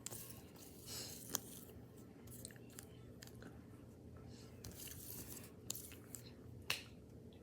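Faint rustling and a few sharp light clicks from small objects being handled, over a low steady hum.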